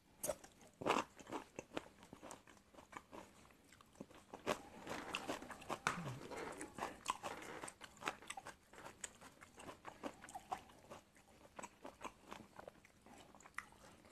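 A person eating close to the microphone: biting into a fresh red chili, then chewing with irregular crunches and wet mouth clicks, the sharpest crunch about a second in.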